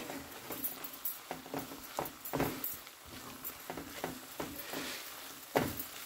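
Wooden spatula stirring and scraping spice-coated mussels and potato pieces around a frying pan, in irregular strokes about two a second, over a light sizzle as the curry dry-fries. The strongest scrape comes near the end.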